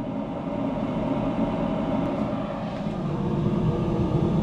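Wood pellet smoker grill in its startup cycle, its draft fan blowing and its auger motor turning the feed screw, making a steady mechanical whir.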